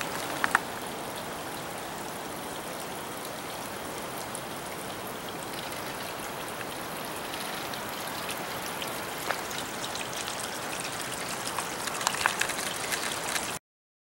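Small waterfall splashing and trickling over rocks, a steady hiss of falling water, with a few faint clicks near the end. The sound cuts off suddenly shortly before the end.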